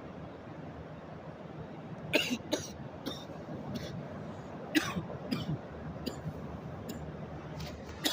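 A person coughing: a few short coughs about two to three seconds in and another few around five seconds in, over a steady low background rumble.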